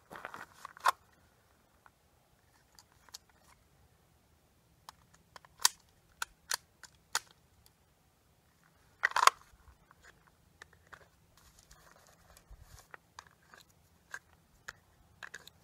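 Scattered faint clicks and crunches, with a louder brief rustle about nine seconds in.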